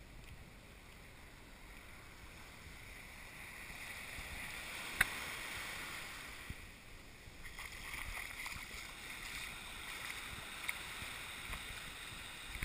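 Small waves washing up a sandy shore, swelling and easing, with a sharp click about five seconds in and a few fainter ticks later.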